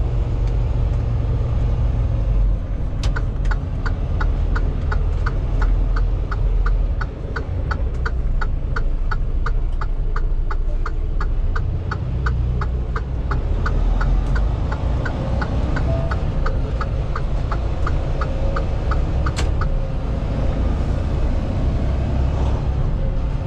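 A Freightliner semi-truck's diesel engine running steadily, heard from the cab, with a turn-signal indicator ticking at about two and a half ticks a second from about three seconds in until near the end, a sharper click at its start and its end.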